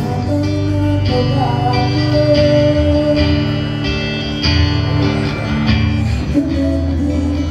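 Live band playing a song: strummed acoustic and electric guitars, drum kit and singing.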